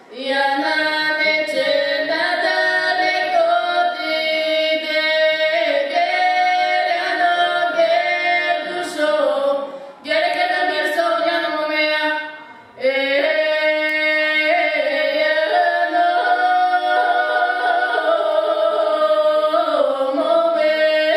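A duet of two young female voices singing a Bulgarian folk song unaccompanied, in long held phrases, with short breaks for breath about ten and thirteen seconds in.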